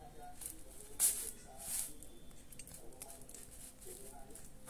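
Scissors cutting into a parcel's plastic wrapping and packing tape: two short snips, about a second in and again just under two seconds in.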